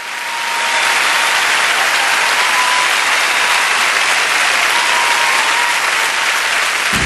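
A large concert audience applauding steadily, fading in over the first second.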